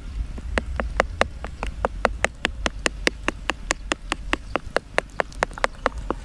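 A spoon beating eggs into a thick flour batter in a plastic bowl, clicking against the bowl in a fast, even rhythm of about five strokes a second, starting about half a second in.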